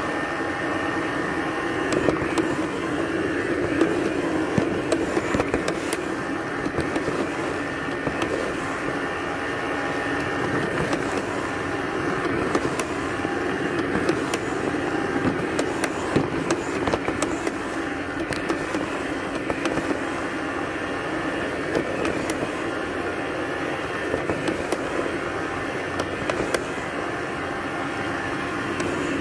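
A simple robot vacuum cleaner running: its suction motor and brushes make a steady whirring hum, with occasional short clicks and knocks as it moves over the floor.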